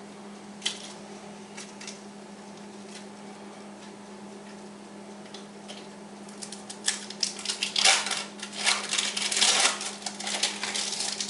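Kitchen handling noise over a steady low hum. A few single clicks come first, then from about the middle there are several seconds of dense crinkling and clicking, as of packaging or foil being handled while a sandwich is made.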